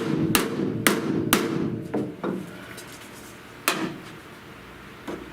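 Hammer blows on the steel outer rocker panel of a 1970 Buick Wildcat, knocking a buckle flat. There are four quick strikes about half a second apart, each leaving the panel ringing briefly, then a few sparser blows.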